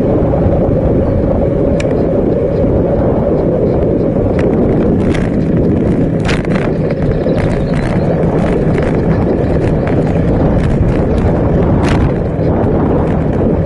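Wind and road rumble on a bicycle-mounted camera while riding, a steady low rush, with scattered sharp clicks and rattles from the bike over the path surface.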